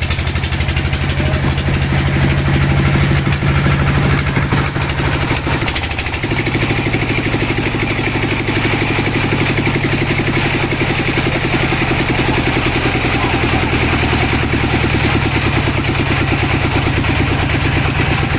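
A sawmill's engine running steadily, with a change in its note about six seconds in.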